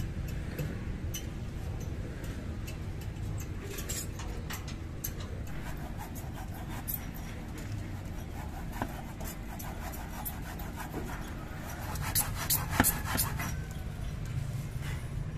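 Scattered metal clicks, knocks and rubbing from hand work on a well-drilling rig's engine mount and wire-rope winch, over a steady low rumble. A burst of sharper clicks comes about twelve seconds in.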